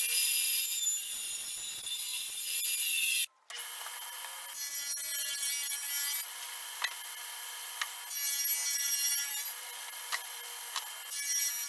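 A Craftsman radial arm saw running through a crosscut on a plywood shelf, its pitch sliding slightly down. After a sudden break, a table saw runs steadily and cuts three rasping passes as plywood shelves are fed on edge past the blade, grooving their front edges for face-frame splines.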